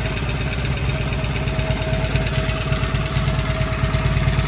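Vintage British motorcycle engine idling steadily.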